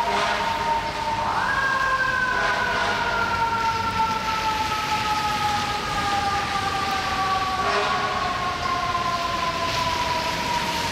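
An FDNY fire truck's mechanical siren, spun up briefly about a second in and then slowly falling in pitch as it coasts down, over the hiss of rain and street traffic.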